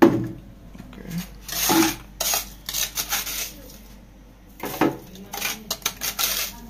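A plastic blender jar knocks against its base at the start, then a metal spoon scrapes and clinks against a ceramic plate several times as crushed ice is scooped up and tipped into the jar.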